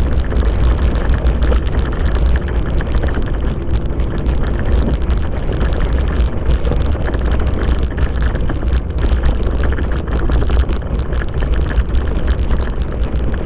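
Wind buffeting the microphone of a camera carried on a moving ride along a trail: a steady, loud low rumble with a rushing noise over it.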